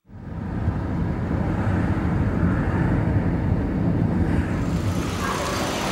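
City street ambience of road traffic, fading in at the start and then steady, with a brighter rushing sound building near the end.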